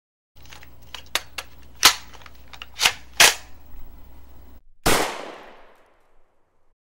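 Gunshot sound effects over a low hum: a run of sharp, irregular shots, three of them much louder than the rest, then after a brief gap one big shot with a long echoing fade.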